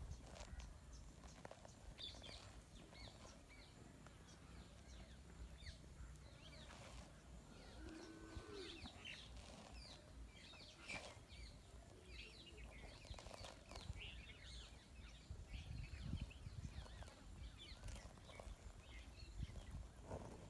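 Faint outdoor ambience: a low rumble with scattered, distant bird chirps.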